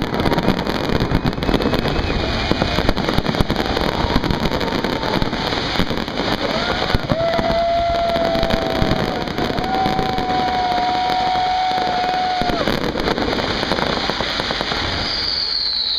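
Fireworks display going off: continuous dense crackling and bangs. A long steady whistle sounds through the middle, and a falling whistle comes near the end.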